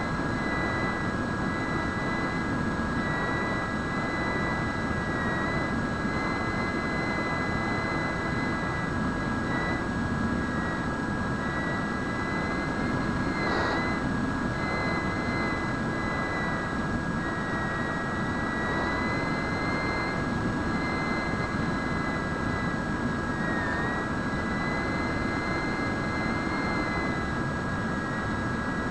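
Bixler foam RC plane's brushless electric motor and pusher propeller running steadily, heard through the onboard camera: a high whine that wavers slightly in pitch over a constant rush of wind.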